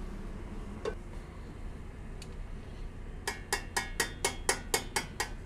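A metal spoon tapping quickly on a stainless-steel pan, about nine sharp, ringing, evenly spaced taps, roughly four a second, in the second half. Under it runs the steady low hum of a commercial kitchen range.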